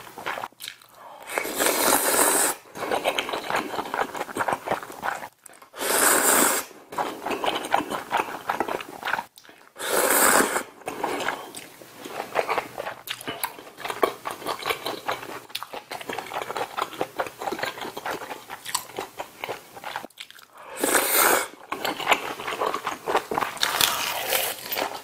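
Close-miked eating of ramen noodles and stew: about five loud slurps of noodles, each lasting about a second, with wet chewing and smacking in between.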